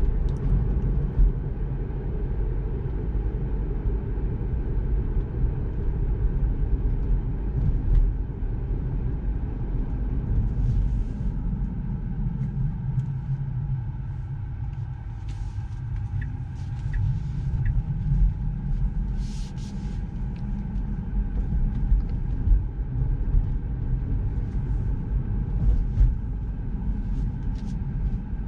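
Steady low road and tyre rumble inside the cabin of a moving Tesla Model 3, an electric car with no engine note, with three short high beeps about halfway through.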